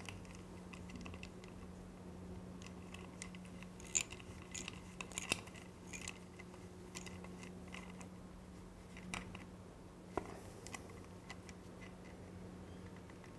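Faint, scattered metallic clicks and taps from a small socket being worked by hand onto the retaining bolt of a motorcycle speed sensor. The loudest clicks come about four and five seconds in and again near ten seconds, over a faint steady hum.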